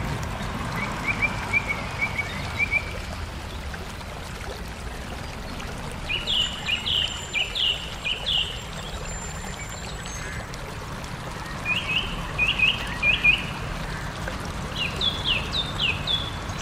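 A songbird singing a short phrase of five or six quick falling notes, repeated three times with pauses between. A fainter, lower series of similar notes comes early on. A steady low background rumble runs beneath.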